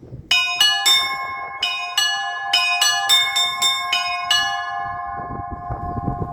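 Russian Orthodox church bells, several of different pitch, start ringing about half a second in with about a dozen quick, unevenly spaced clapper strokes. After about four seconds the strokes stop and the bells ring on, slowly fading.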